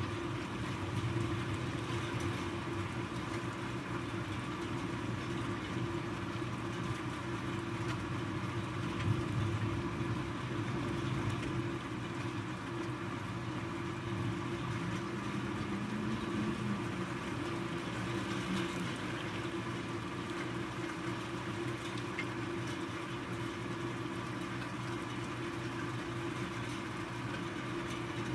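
A steady low mechanical hum over a faint hiss, unchanging throughout.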